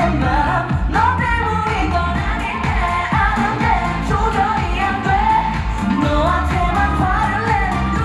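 K-pop song performed live: a singer's voice over a pop backing track with a steady bass beat, amplified through a concert PA.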